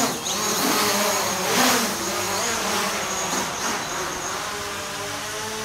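Small quadcopter drone hovering and flying, its propellers buzzing in several tones whose pitch rises and falls as it manoeuvres.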